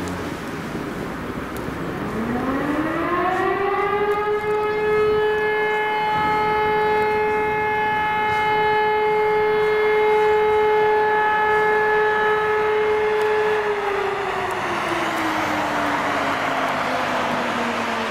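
Electric motor siren, the fixed kind used to call out German volunteer fire brigades, winding up to a single long steady wail that holds for about ten seconds and then slowly winds down.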